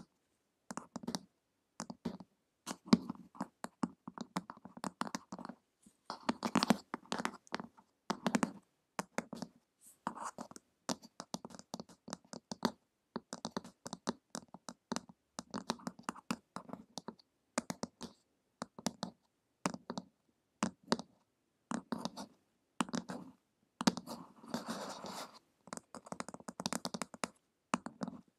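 Long acrylic fingernails tapping and scratching on a glossy printed cover, close to the microphones: quick, irregular clicks with short runs of scratching, and a longer scratchy stretch near the end.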